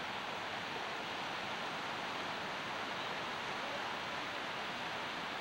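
Steady rushing of sea surf washing over and around shoreline rocks.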